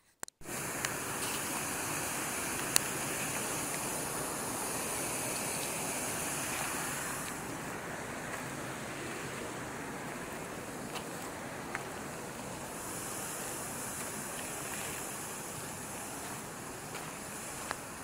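Wind rushing steadily over a body-worn camera's microphone on an open mountain path. A thin high hiss rides over it and drops away for a few seconds in the middle, with a few faint ticks.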